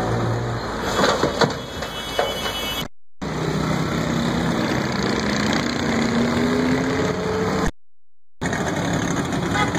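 A wheel loader's diesel engine running as its bucket tips mud and garbage into a dump truck's bed, with a clatter of debris landing about a second in. After a short break, road traffic with a vehicle engine rising steadily in pitch, then a second short break and more traffic.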